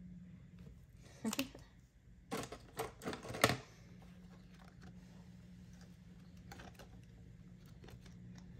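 A few sharp clicks and taps from handling a colouring pen and binder supplies, bunched about two to three and a half seconds in, then faint small ticks of colouring in, over a steady low hum.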